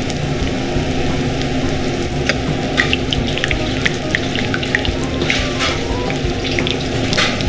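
Ayu spring rolls shallow-frying in sunflower oil in a frying pan: a steady sizzle with many scattered pops and crackles.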